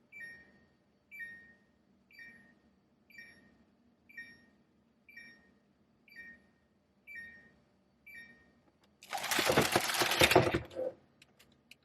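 Samsung refrigerator's door-open alarm beeping about once a second, each beep a short two-note chirp stepping down in pitch: the door has been held open too long. Near the end the beeping stops and a loud burst of noise lasting about two seconds follows.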